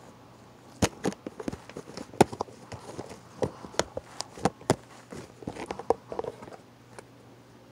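Hands poking and squeezing fluffy slime with small beads mixed in, giving a run of irregular sharp pops and clicks that starts about a second in and dies away near the end.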